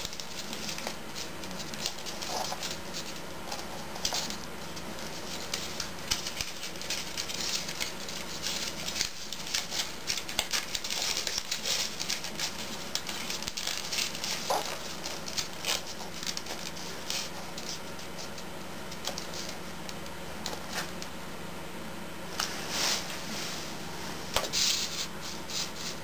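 A sheet of origami paper being folded and creased by hand, rustling and crinkling in irregular short crackles, busier in a couple of stretches.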